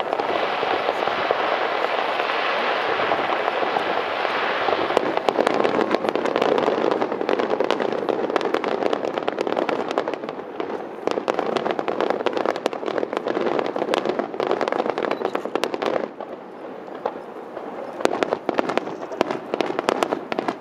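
Aerial fireworks display: a dense barrage of shells bursting in rapid, continuous crackling and popping. The barrage eases off briefly about three-quarters through, then resumes as separate sharp bangs near the end.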